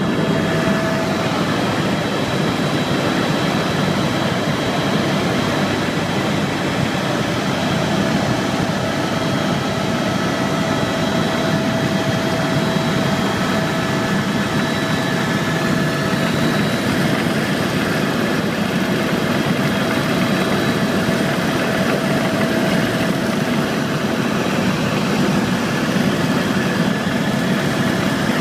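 Tour helicopter's turbine engine and rotors running steadily: a dense mechanical noise with a steady high whine over it.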